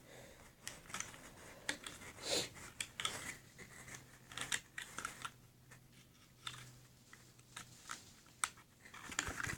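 Faint, scattered small clicks and light rustles: hands handling the packaging and taking out a small plastic remote control.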